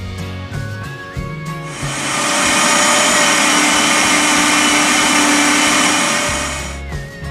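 Countertop blender grinding whole dry spices into powder: a loud, steady whirring that starts about two seconds in and winds down near the end. Light background music plays before and after.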